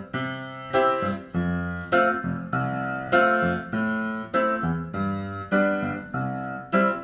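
Background music: a piano playing chords in a steady, bouncing rhythm, about two struck chords a second, each dying away, with no singing.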